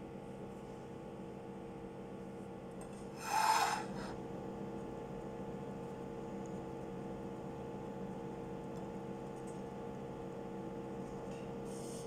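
Steady low electrical hum, with one short rasping scrape about three and a half seconds in.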